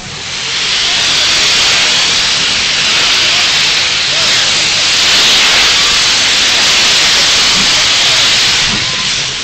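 Steam locomotive letting off a loud, steady hiss of steam that swells in over the first second and begins to ease off near the end.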